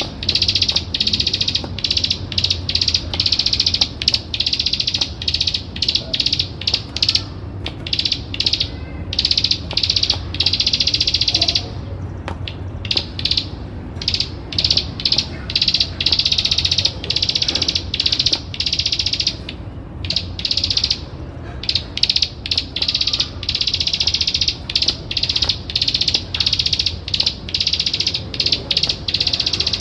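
Plain prinia (ciblek sawah) singing its rapid, buzzing 'ngebren' trill in long, high-pitched runs of clicks broken by short gaps, with brief pauses about twelve and twenty seconds in.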